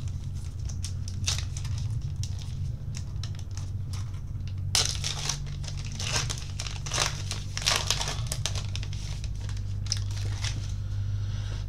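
Plastic wrapper of a trading-card box topper crinkling and tearing as it is opened by hand, in irregular rustles that get busier about halfway through.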